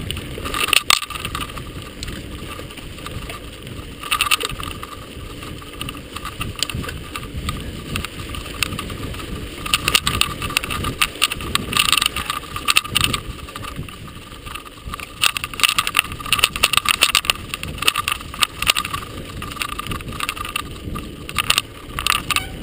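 Mountain bike rolling down a dirt singletrack: steady tyre noise with irregular rattling and clattering as the bike jolts over bumps, heavier in the second half.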